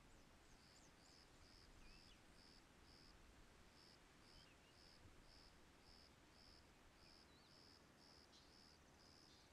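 Faint insect calling in a steady series of short, high chirps, about two a second, with a few faint high bird calls here and there.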